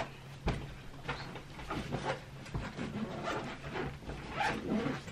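Cloth duffel bag being handled and packed: irregular rustling, scraping and soft knocks, beginning with a single sharp click.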